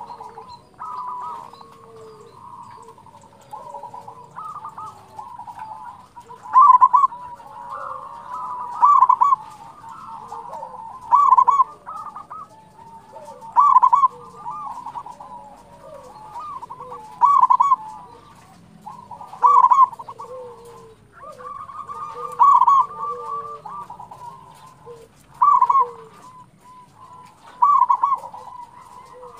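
Zebra doves (perkutut) cooing. A loud coo phrase comes about every two to three seconds, with softer cooing in between.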